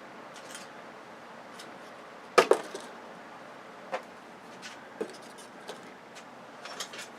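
Small hard scrap parts being handled and dropped onto a pile: a sharp double clack about two and a half seconds in, then scattered lighter clicks and a short run of clinks near the end.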